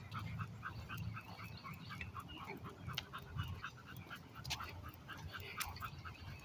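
An American pit bull terrier panting faintly in a quick, even rhythm, about five breaths a second, while walking on the leash.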